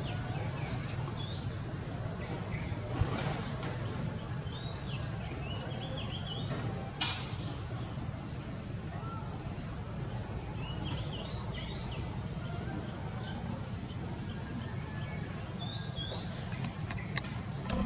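Outdoor ambience: small birds chirping in short, scattered calls over a steady low rumble, with a brief rustle about seven seconds in.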